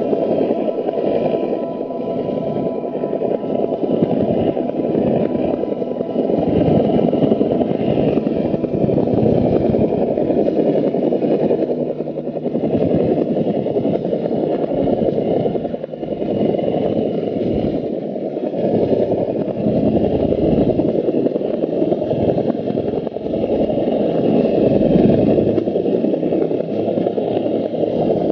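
Muffled, steady rumble of wind buffeting and engine noise on a camera riding on a suspended work platform in flight, with a short dip about sixteen seconds in.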